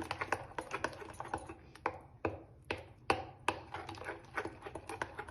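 A spoon mixing butter into a thick ground coconut and chilli paste in a bowl. The spoon clicks and taps against the bowl in an irregular run of several small knocks a second.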